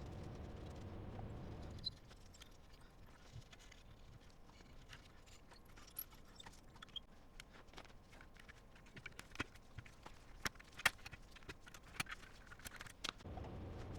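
Scattered clicks and taps of small hard parts being handled and knocked together during a computer teardown cleaning, sparse at first and busier and louder in the second half. A low hum runs underneath for the first two seconds and then stops.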